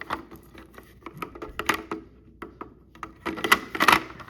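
Plastic clicks and knocks from a FireX i4618 smoke alarm being handled, with a quick cluster of clicks about three seconds in.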